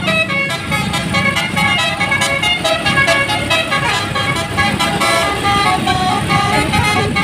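Bus basuri horn, a multi-note musical air horn, playing a fast tune of short changing notes over a low rumble.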